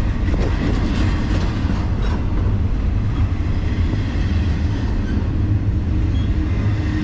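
Double-stack intermodal well cars of a freight train rolling slowly past as the train comes to a stop: a steady low rumble of steel wheels on rail.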